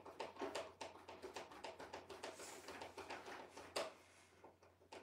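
Hand screwdriver turning a screw into the plastic tail mount of a foam RC jet: a faint, irregular run of small clicks and ticks, with one louder click near four seconds.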